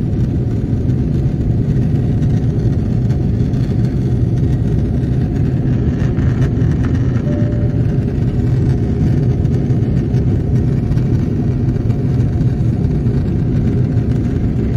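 Steady jet airliner cabin noise in flight: the even, low noise of the engines and rushing air heard from inside the cabin.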